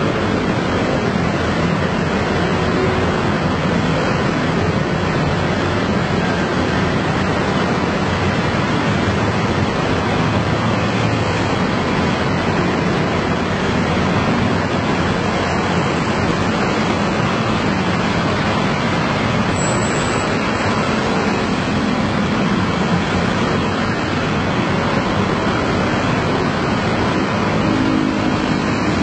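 Many motor scooters riding past together in heavy traffic, their engines blending into one steady noise with no single machine standing out.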